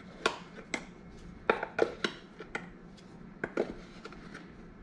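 Plastic garlic powder jar being tapped and shaken over a pot to get the powder out: about seven irregular sharp taps and knocks, spread unevenly over a few seconds.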